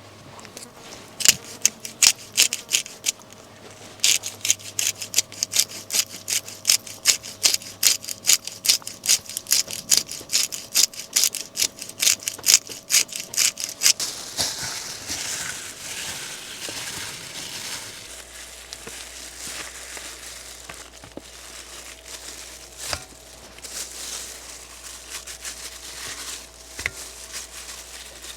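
Knife chopping food on a wooden cutting board, about two sharp strokes a second, stopping about halfway through. A steady hiss with a few scattered clicks follows.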